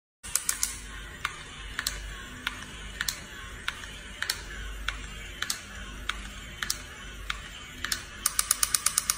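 Mechanism of a crawling toy soldier clicking: single sharp clicks a little over half a second apart, then, about eight seconds in, a fast, even run of clicks several a second.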